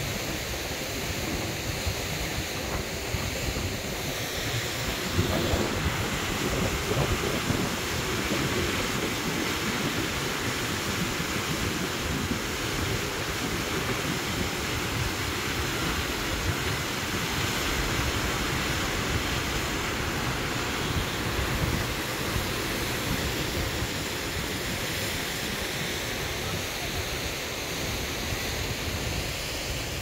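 Wind buffeting the microphone over the steady rush of Selvallafoss waterfall. The rushing grows louder from about five seconds in and eases again near the end.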